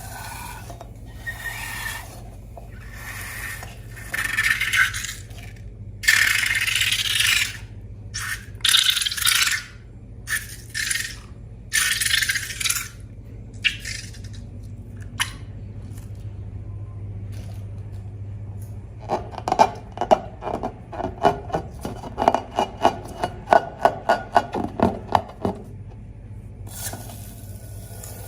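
Slime-making handling sounds: irregular bursts of scraping and rattling as ingredients are worked in a bowl, then a run of quick regular clicks, about three or four a second, over a low steady hum.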